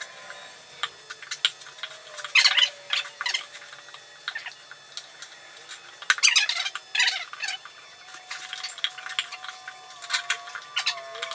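Lawn tractor front tire being forced onto a steel rim by hand with a screwdriver as a lever: the rubber bead scrapes and rasps against the rim edge, with small clicks of the tool. The scraping comes in bursts about two seconds in and again around six to seven seconds.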